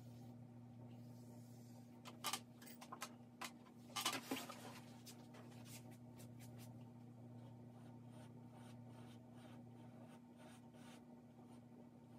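Quick strokes of a drawing stick scratching across drawing paper, in clusters about two and four seconds in, then fainter strokes, over a steady low hum.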